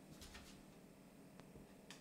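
Near silence: room tone with a few faint soft clicks, the last near the end a little sharper.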